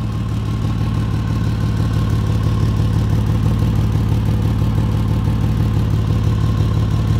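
2004 Ford Ranger exhaust running steadily with a puttering, unmuffled note from an exhaust leak just ahead of the flex pipe.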